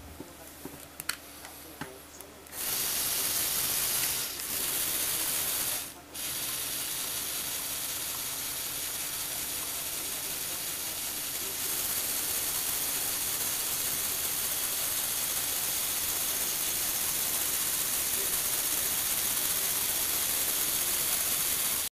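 Lego Technic electric motors and plastic gear trains running as the model's mechanism tilts and lifts two die-cast cars. A few light clicks come first, then the motors start about two and a half seconds in, stop briefly around six seconds, and run on, a little louder past the halfway point.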